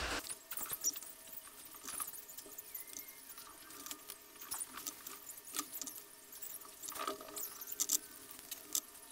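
Faint, irregular small clicks and light rustling of hands handling bell pepper strips and scallion greens, wrapping them into bundles.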